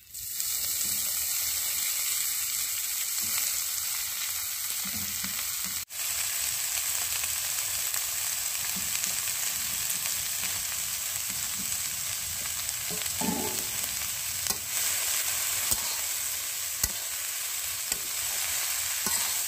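Chopped amaranth greens (data shaag) and green chillies sizzling in hot mustard oil in a kadai as they are stirred, with a steady frying hiss and a few light clicks in the second half. The sound cuts out for an instant about six seconds in.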